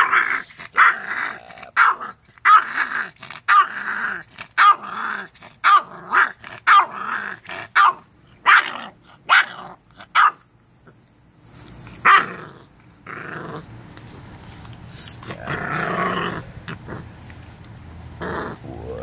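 Seven-week-old Renascence Bulldogge puppy growling in short, rapid bursts over its raw chicken wing as a hand touches its head: dog-to-human food aggression, guarding its food. The growls come thick for about ten seconds, then only a few fainter ones follow.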